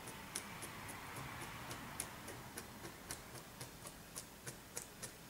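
Faint, quick light ticks, about three a second and uneven in strength, of a toothpick dabbing and pulling points from wet water-effects gel on a plastic-covered board.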